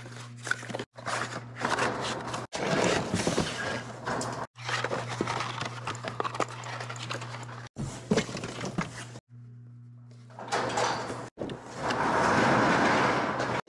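Cardboard retail packaging of a computer mouse being handled: the box sleeve slides off and the inner tray is pulled out, with rustling and scraping over a steady low hum. The sound is broken by a few short silences, and there is a louder rustle near the end.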